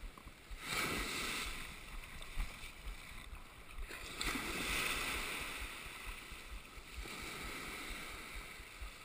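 Small surf waves washing up the beach in a rush of foam: one wash just under a second in and a longer one about four seconds in.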